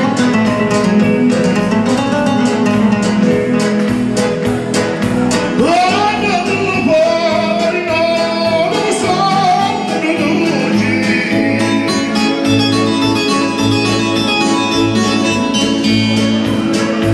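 Live band music: a man singing into a microphone over strummed acoustic guitar and electronic keyboard, with a steady beat.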